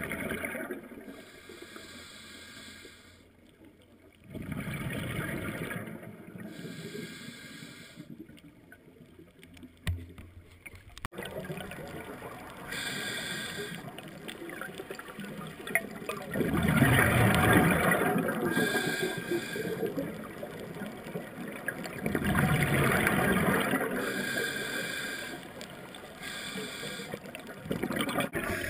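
Scuba regulator exhaust bubbles heard underwater: bursts of gurgling bubbles lasting two to three seconds, coming every five or six seconds with quieter gaps between. There is a single sharp click about ten seconds in.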